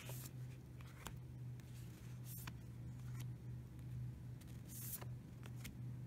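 Oracle cards being slid off a hand-held deck one at a time onto a pile, giving a few short, soft card swishes, over a steady low hum.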